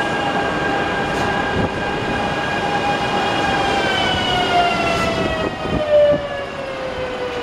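Flytoget electric multiple unit rolling into the station as it slows. A multi-toned electric whine falls steadily in pitch from about three seconds in, over the rumble of the wheels on the track, with a few short thumps, the loudest near the end.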